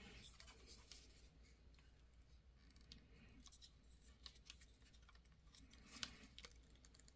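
Near silence with faint, scattered clicks and scratchy rubbing of plastic toy parts being handled and pressed together. The most distinct click comes about six seconds in.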